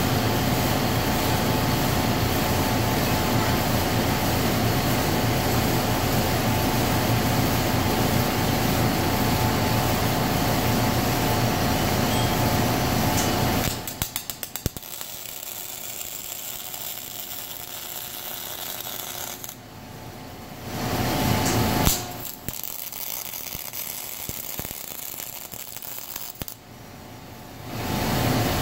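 A robotic welder welds rebar to a steel bearing plate. About halfway through, a quick run of clicks marks the arc striking, and the arc's crackling hiss runs for about fourteen seconds with a few swells. Before and after the weld, a loud steady shop machinery hum with a held tone dominates.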